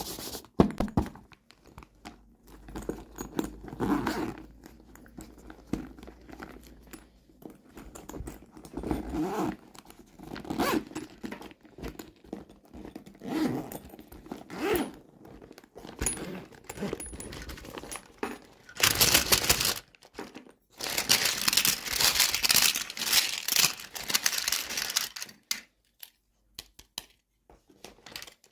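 Toy packaging handled and torn open by hand: scattered rustles and clicks, then a long stretch of crinkling and tearing in the second half.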